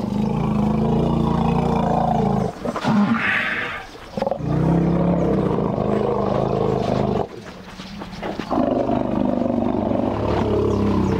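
African elephants giving low greeting rumbles: three long, loud rumbles of a few seconds each, with a short higher call between the first two. The rumbles are the elephants' welcoming call to returning herd-mates.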